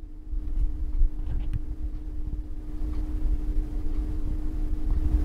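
Low background rumble with a steady hum, and a few faint light clicks about a second in.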